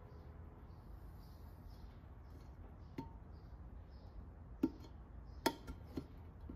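Four sharp metal clicks of needle-nose pliers and small parts against a carburetor body being stripped, about halfway in and near the end, the third the loudest, over a faint steady background.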